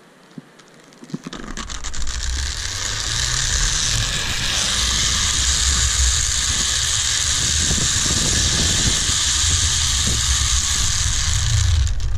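Zip-line trolley pulleys running along a steel cable: a loud, steady whirring hiss with the rumble of wind on the microphone. It starts about a second in, builds for a moment as the rider picks up speed, then holds steady.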